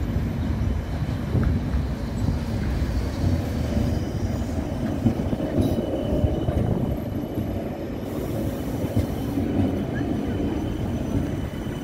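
Articulated tram rolling slowly past at close range: a steady low rumble of wheels on the rails, with a faint high whine coming in about halfway through.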